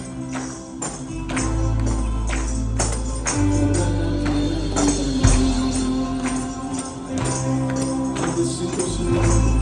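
Church worship music with a tambourine prominent over held bass notes and sustained chords.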